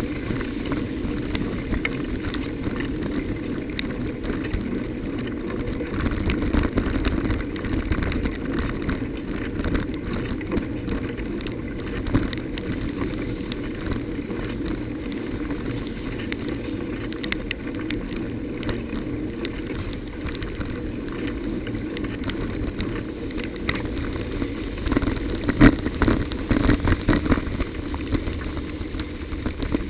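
Bicycle ridden over a wet, broken road: a steady rumble of tyres and wind with scattered rattles and knocks from the bike. Near the end the bike jolts harder over rough ground, with a run of louder knocks.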